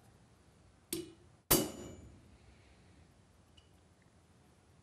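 Hammer blows on a cold cut chisel held against cold quarter-inch square steel bar on an anvil, marking a notch for cutting. A light tap about a second in, then a hard blow half a second later with a short metallic ring.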